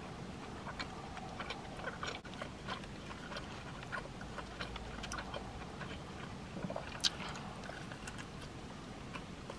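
Biting and chewing a hot pastrami sandwich on a soft roll, with small wet mouth clicks and smacks throughout and one sharper click about seven seconds in.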